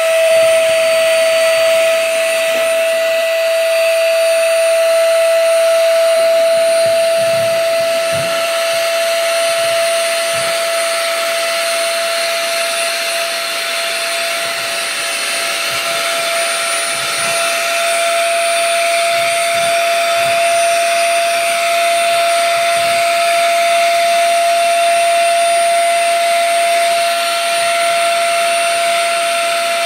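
Ash vacuum cleaner running steadily with a high, even whine over rushing air as its hose sucks up ash.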